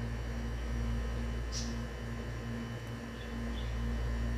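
Steady low machine hum with a faint tone pulsing about twice a second, and a couple of brief soft hisses.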